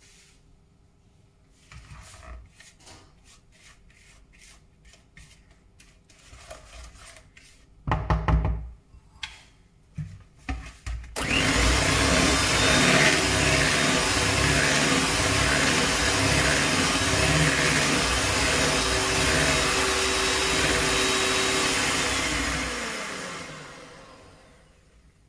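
Kenwood electric hand mixer beating cake batter in a plastic bowl. It starts after a few knocks and handling noises, runs steadily for about twelve seconds, then winds down with a falling pitch as it is switched off.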